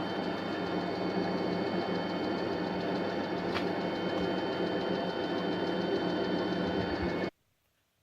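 Old metal lathe running steadily, a mechanical hum with several constant whining tones. It cuts off abruptly about seven seconds in.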